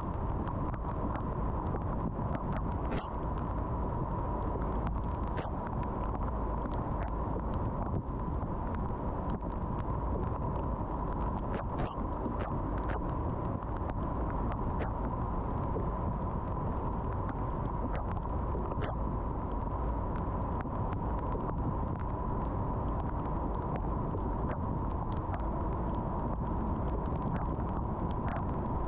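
A car driving on a rain-wet road: steady road and tyre noise, with scattered light ticks at irregular moments.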